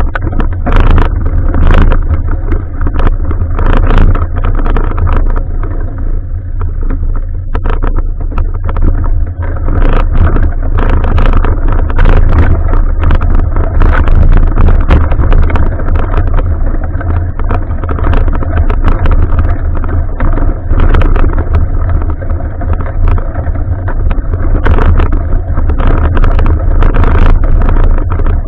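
Bicycle ride heard through an action camera's microphone: a loud, steady low rumble of wind and road, with frequent sharp rattles and knocks.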